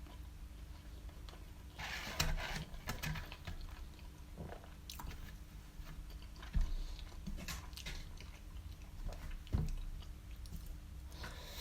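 Close-miked chewing and biting through a mouthful of halal snack pack (doner kebab meat, cheese and chips in sauce), with irregular wet clicks and smacks. There is a busier stretch of chewing about two seconds in, and two low thumps, one a little past the middle and one about two-thirds of the way through.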